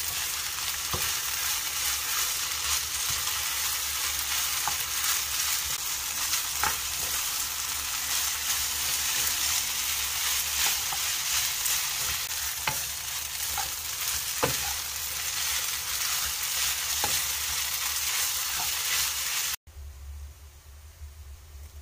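Fried rice sizzling in a nonstick frying pan as it is stir-fried with a wooden spatula and a metal spoon, with scattered sharp clicks of the utensils against the pan. The sizzling cuts off abruptly near the end, leaving a much quieter low hum.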